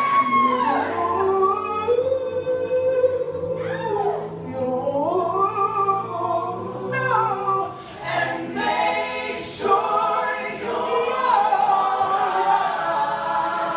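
An a cappella group singing: a male lead voice through a microphone over the group's sung harmonies. Low held bass notes sit beneath the chords from about four to eight seconds in.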